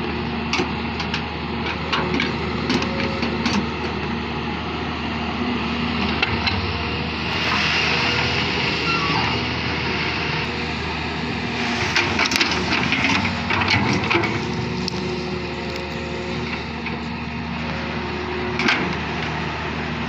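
2007 Doosan DX140W wheeled excavator's diesel engine running steadily under digging load, with scattered cracks and knocks as the bucket works the soil. It grows louder and rougher for a few seconds twice, about a third of the way in and again past the middle.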